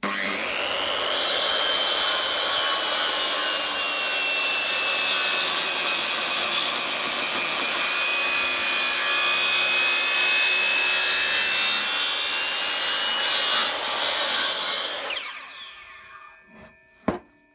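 Wood lathe running with a tool working a spinning blank of ulin (ironwood): a steady, loud scraping hiss over a high motor whine. It starts suddenly, and about 15 seconds in the lathe is switched off and the whine falls away as it spins down, followed by two sharp knocks.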